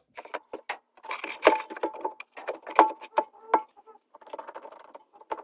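Hand tools clicking, tapping and scraping on the metal casing and mounting bolts of an electric car's onboard charger as it is fitted back into place. The knocks come irregularly, and several ring briefly.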